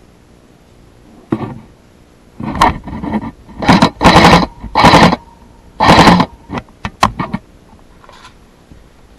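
Airsoft gun firing: several short full-auto bursts in quick succession, then a few single shots near the end.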